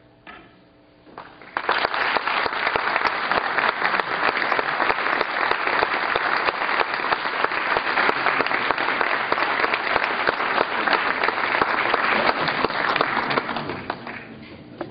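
Audience applauding: clapping breaks out about a second and a half in, holds steady, and dies away near the end.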